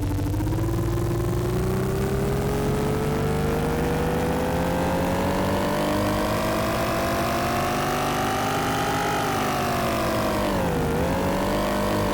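Synthesized sci-fi spaceship engine sound played on a Phase Plant wavetable synthesizer: one steady engine-like tone whose pitch climbs slowly for about nine seconds, then drops, dips briefly and settles lower near the end.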